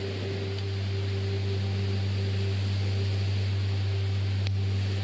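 A stream running steadily, under a loud, steady low hum.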